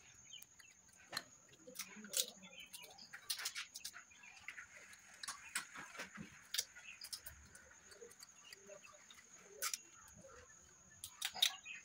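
Quiet outdoor background: faint bird chirps and scattered light ticks and taps, over a thin steady high tone.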